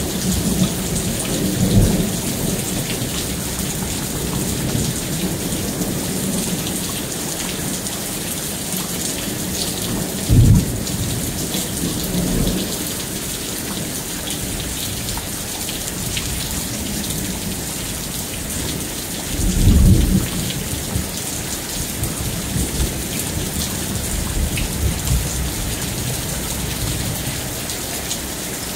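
Thunderstorm: steady heavy rain hissing throughout, with low rolls of thunder, the loudest about ten seconds in and again around twenty seconds in.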